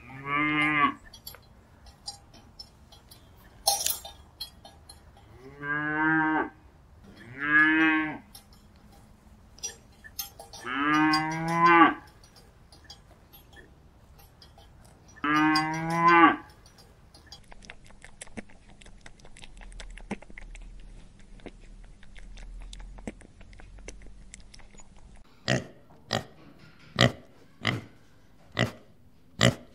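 Cattle mooing: five separate calls over the first sixteen seconds, each under about a second and a half long. Near the end come short pig grunts, about one a second.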